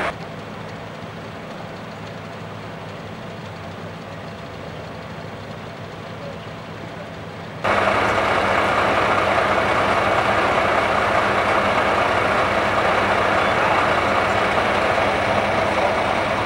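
Heavy-duty pickup truck engine idling with a steady hum. Partway through it becomes abruptly louder and fuller, as if much closer.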